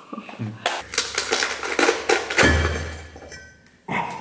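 Tableware clattering: a quick run of light taps and clinks of a spoon and noodle cup against ceramic bowls.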